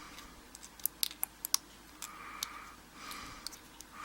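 Light metallic clicks and scraping as a padlock shim is worked at the shackle of an American 5100 padlock and will not go in. A cluster of sharp clicks comes about a second in, with scattered single clicks before and after.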